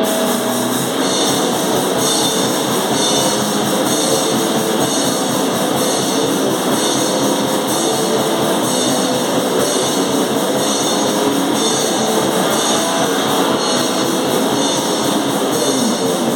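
Live noise-metal band playing: a steady wall of distorted guitar over very fast drumming.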